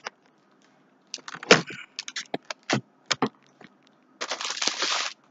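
Packaging of polo T-shirts being handled: a string of sharp crackles and clicks, then a longer rustle near the end.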